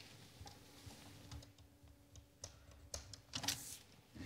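Faint light clicks and taps of a pencil and tape measure on a shower liner as measurement marks are drawn, with a short pencil scratch about three and a half seconds in.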